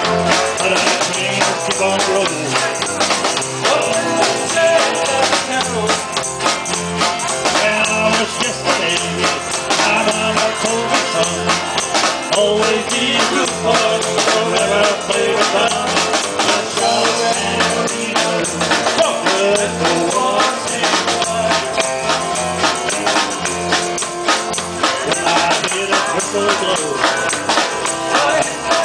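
Live country-rock band playing: drum kit, electric bass and guitar keeping a steady beat, with a tambourine shaken along.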